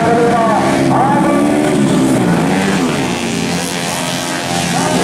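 Tuned automatic racing scooters (matic class up to 150cc) ridden at speed past the listener, the engines whining high with the pitch falling and rising again several times as bikes go by.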